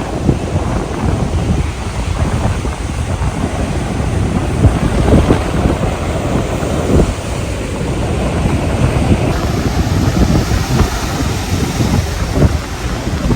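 Strong gusty wind buffeting the microphone over ocean surf and swell breaking on the shore.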